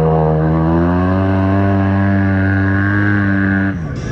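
Snorkeled side-by-side UTV engine running hard under load while driving through deep water, its pitch climbing a little about a second in and then holding steady. The sound cuts off abruptly near the end.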